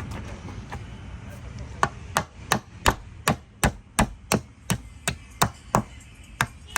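A hammer striking a nailed board again and again, about three even blows a second, starting about two seconds in, as nails are knocked back through to be pulled out.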